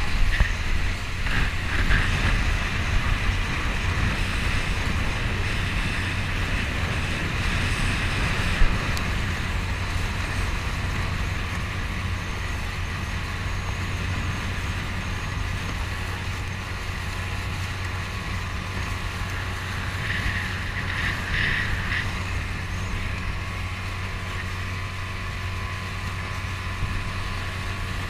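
Honda BF 9.9 four-stroke outboard motor running steadily at speed, driving an inflatable dinghy over choppy water. Wind buffets the microphone, and the hull thumps on the waves a few times in the first few seconds and once about eight seconds in.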